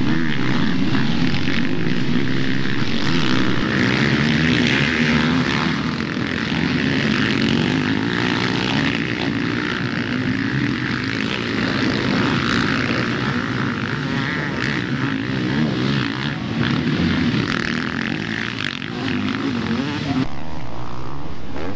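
Several MX1 motocross bikes racing through a dirt corner, their engines revving up and down as the riders throttle through the turn and accelerate away. The sound changes abruptly near the end.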